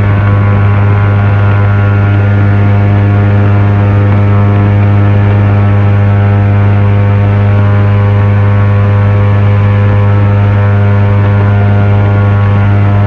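Airboat's engine and air propeller running at steady cruising speed: a loud, unbroken drone with a deep hum.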